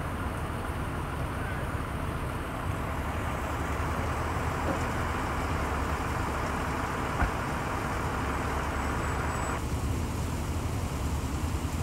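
Steady low rumble of idling fire-truck engines, with a hissing noise over it that stops abruptly near the end. A single sharp knock sounds about seven seconds in.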